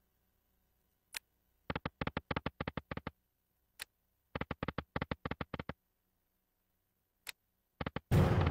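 Online slot machine game effects over three spins. Each starts with a single click, and about half a second later a quick run of about a dozen ticks plays as the reels come to a stop. The last run opens with a louder hit.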